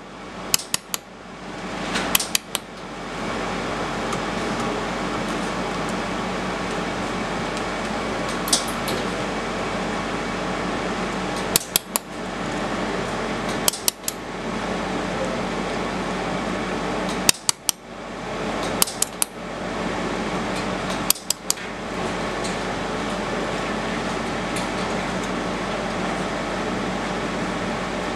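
Laser welding machine running with a steady hiss, broken about half a dozen times by brief dips and sharp metallic clicks.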